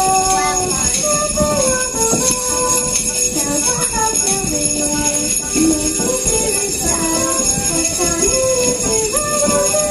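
Sleigh bells shaken continuously by a group of children, jingling along with recorded instrumental music that carries a stepping melody.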